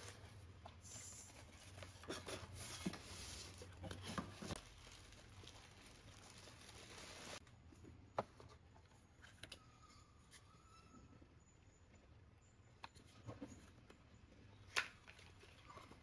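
Cardboard boxes being opened and unpacked by hand: rustling and scraping of cardboard flaps for the first few seconds, then quieter handling with a few sharp taps and clicks as small product boxes are lifted out.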